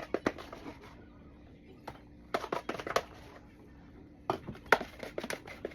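Quick clicks and knocks of kitchen utensils and food containers being handled while portioning food, in three short clusters.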